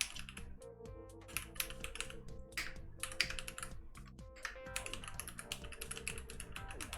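Rapid, irregular keystroke clicks on a Keychron K6 Pro mechanical keyboard fitted with red Pro switches, over quiet background music.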